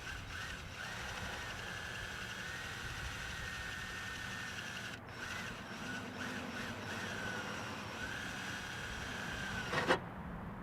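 Electric drill running slowly with a 5/64-inch bit, drilling a pilot hole through the bottom layer of the sheet-steel hood edge: the motor whine wavers in pitch, in short pulses at first and then in longer stretches. A sharp click near the end.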